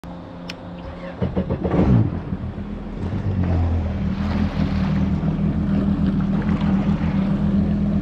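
Yamaha GP1800R SVHO jet ski's supercharged four-stroke engine running, revving up with a rising pitch about a second in, then settling into a steady run.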